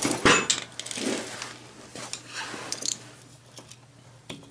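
A replacement oil-burner motor being handled and shifted into place: metal clunks and scraping, loudest in the first second and a half, with a few small clicks near the three-second mark over a steady low hum.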